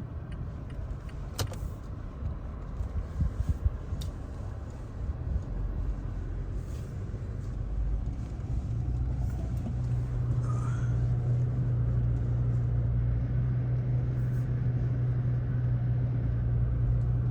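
A vehicle's engine and road rumble while driving, with a few sharp clicks in the first few seconds; a steadier low engine hum settles in from about ten seconds in.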